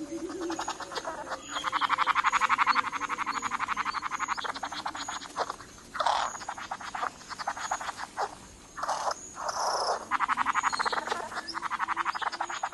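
Male bowerbird's rapid rattling, rasping call during his courtship display, in several bouts of fast pulses with short breaks between.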